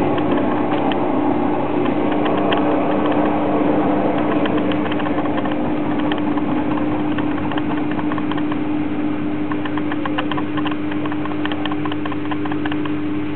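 Balay washing machine running: a steady motor hum with a constant tone, overlaid by a continuous irregular rattle of quick clicks.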